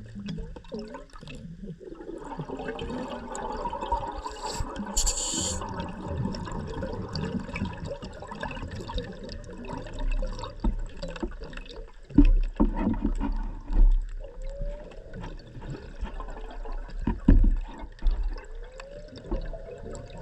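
Underwater audio of a Seacraft diver propulsion vehicle (scooter) running. Its motor whine glides up and down in pitch over a steady rush of water. There is a short hiss about five seconds in, and a few heavy low knocks in the second half.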